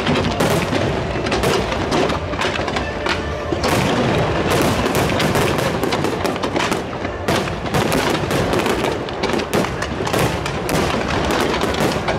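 Aerial fireworks barrage: a rapid, unbroken string of overlapping bangs and crackling shell bursts.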